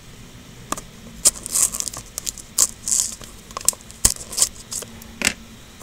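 Scissors snipping through plastic shrink-wrap on a plastic toy container, with irregular sharp clicks and crinkling crackles of the wrap.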